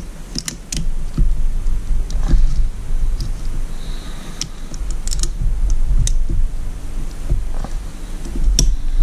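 Small sharp metal clicks and scrapes of pliers working an old piston ring off an outboard piston, over low handling bumps.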